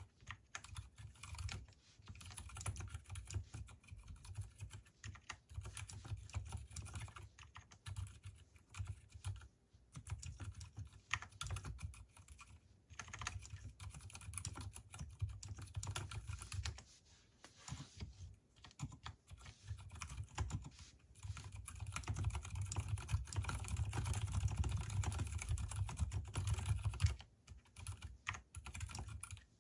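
Typing on an Mstone Groove T mechanical keyboard with silicone fitted, unlubricated Gateron silent brown switches and lubricated stabilizers. A continuous run of keystrokes with a few short pauses, busiest and loudest in the last third before a brief stop near the end.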